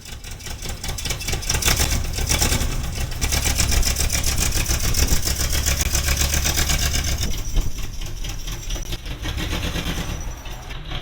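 Motorhome engine running, the owner's worn-out 'junk engine', rising in level about a couple of seconds in and easing off again after about seven seconds.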